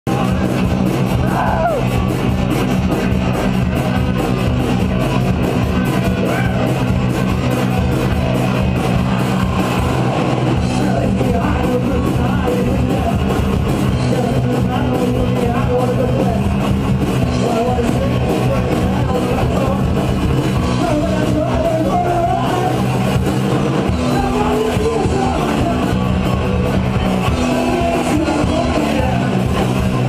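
Live rock band playing loud, with distorted electric guitars, bass and pounding drums and a vocal shouted over them.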